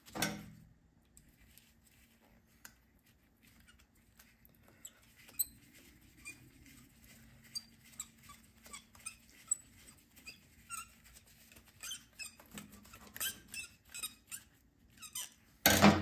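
A screwdriver turning the idle set screw into a snowblower carburetor: faint, scattered metal clicks and small squeaks, with a louder clatter near the end.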